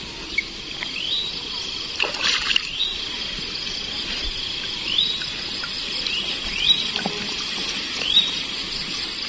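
Water splashing and dripping as a folding net shrimp trap is pulled up out of a pond. A bird repeats a short rising call about once every second or two.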